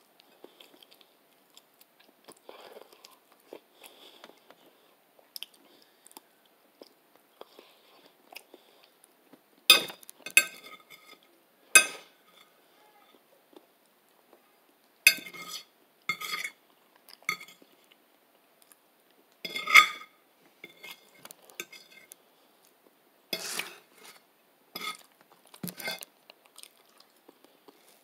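Soft chewing, then a metal fork clinking and scraping against a plate about ten times, in sharp, ringing knocks spread through the second two-thirds.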